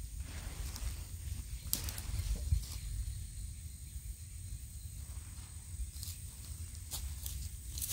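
Outdoor ambience: a steady high-pitched insect drone over a constant low rumble, with a few faint clicks or rustles.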